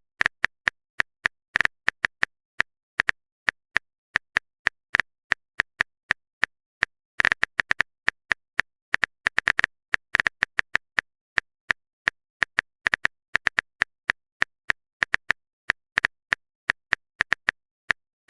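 Keyboard typing sound effect: a long run of short, sharp taps at an irregular pace, several a second, with brief pauses.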